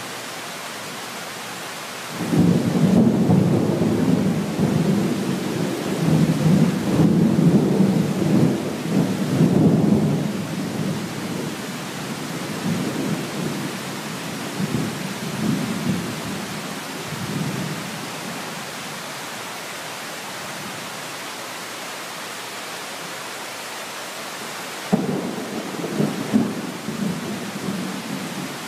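Steady rain hiss under a thunderstorm. About two seconds in, thunder breaks suddenly and rumbles for several seconds before slowly fading. A second thunderclap cracks sharply near the end and rumbles on.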